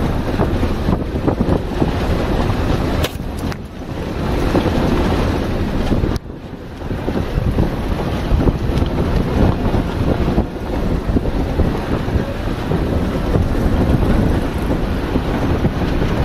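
Wind buffeting the microphone from a moving vehicle, over the low rumble of the vehicle driving along a rough dirt track. The gusts rise and fall unevenly, with a brief lull about six seconds in.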